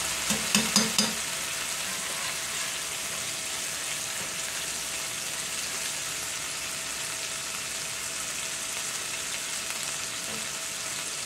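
Ground-beef burger patties sizzling steadily in hot cast iron skillets, with a few sharp clicks of a metal spatula against the pan in the first second.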